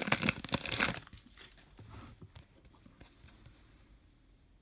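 Wrapper of a trading card pack being torn open and crinkled, loud for about the first second, then fainter rustling of the wrapper and cards that fades near the end.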